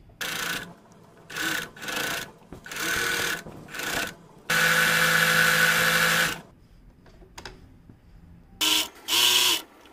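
Household electric sewing machine stitching through fabric in stop-start bursts: several short runs, then one longer run of about two seconds in the middle. After a pause, two more short bursts come near the end.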